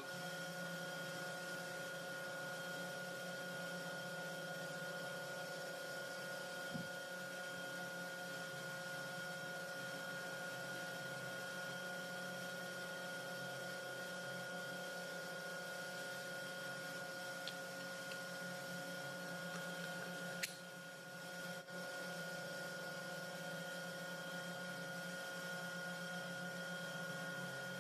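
Metalworking machine tool running steadily, a constant hum with several fixed whining tones; a single sharp click about twenty seconds in.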